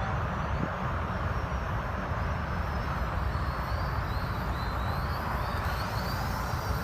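Steady rumbling wind noise on the microphone, with a few faint high chirps.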